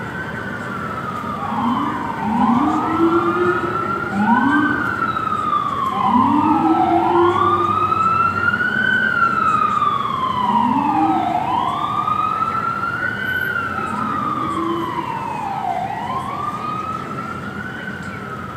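Sirens of several FDNY emergency vehicles wailing together, overlapping, each slowly rising and falling, with shorter rising tones lower down. They are loudest in the first half and fade toward the end as the vehicles pass.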